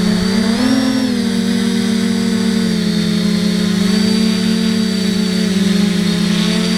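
FPV quadcopter's electric motors and propellers whining steadily, the pitch rising briefly a little over half a second in and dropping back about a second in.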